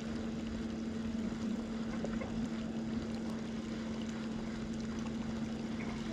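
Electric bow-mounted trolling motor running with a steady, even hum.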